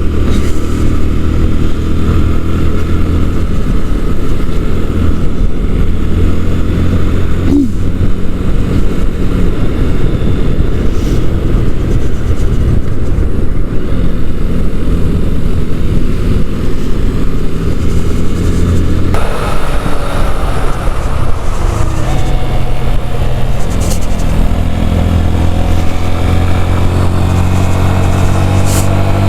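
A Sinnis Akuma 125cc motorcycle's small engine running under way, heard on board. It holds a steady pitch, changes abruptly about two-thirds of the way through, then rises and falls in pitch as the throttle and gears change.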